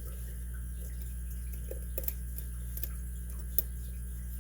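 Faint, sharp clicks, about half a dozen spread unevenly, from a lock pick and tension wrench working the pins of a six-pin Yale lock cylinder, over a steady low hum.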